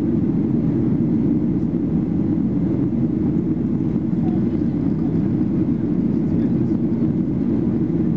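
Steady cabin drone of a Boeing 737-800 in flight: the CFM56-7B engines and the airflow, heard from inside the passenger cabin, low and even with no changes.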